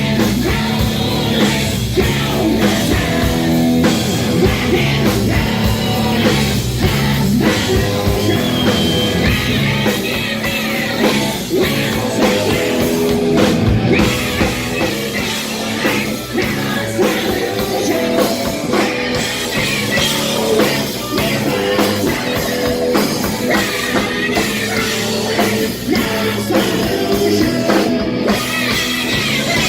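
Live hard rock band playing, with electric guitars, drum kit and a singing voice, as recorded from the audience.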